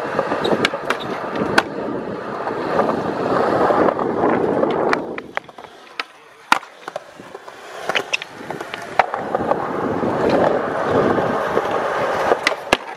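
Skateboard wheels rolling on concrete, with sharp clacks of the board striking the ground. The rolling drops away for a couple of seconds in the middle, where a single sharp clack stands out about six and a half seconds in, then the rolling resumes.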